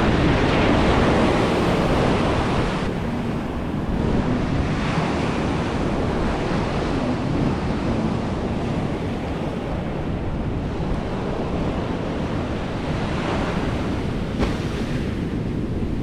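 Ocean surf breaking and washing on the beach, a steady roar rising and easing in slow swells, with wind buffeting the microphone.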